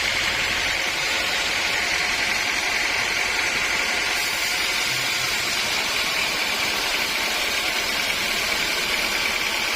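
Sawmill machinery running steadily: a continuous mechanical hum with a steady high whine on top, level throughout.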